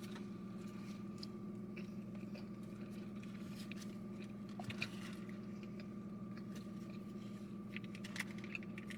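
Quiet chewing and small crunches of someone eating a fried chicken sandwich, scattered soft clicks with one a little louder about halfway through, over a steady low hum.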